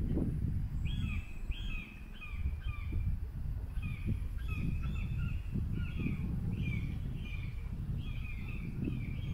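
A bird calling over and over in short, high, falling notes, about two a second, starting about a second in, over a loud uneven low rumble.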